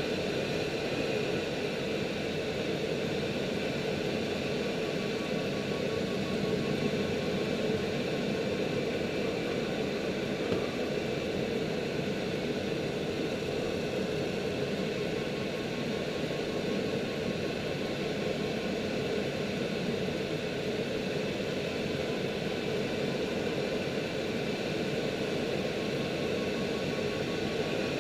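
Steady rush of air over the 304S Shark glider's canopy in flight, an even wind noise with a faint steady hum in it.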